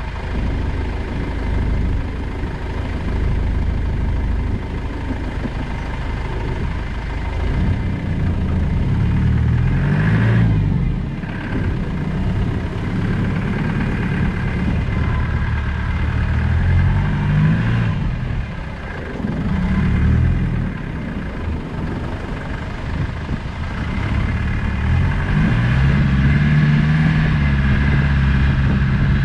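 Land Rover Discovery's 200 Tdi four-cylinder turbodiesel engine pulling off-road, revving up and easing off again several times, with the loudest, longest run near the end.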